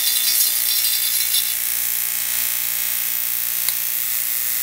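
A 250-volt AC electromagnet buzzing steadily with mains hum. A single click near the end.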